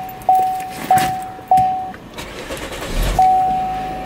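Car's interior warning chime dinging, one clear tone repeating about every 0.6 seconds, as the driver settles in with the door open. About three seconds in the engine starts with a low rumble, and the chime changes to a longer held tone.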